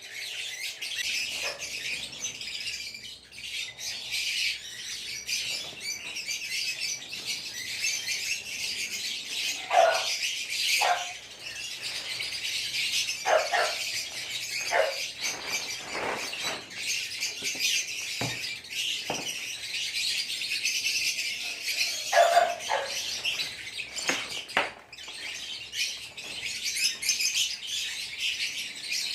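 A flock of caged lovebirds chattering and chirping without pause, a dense high twittering, with a few louder, sharper sounds standing out around the middle and again about three-quarters through.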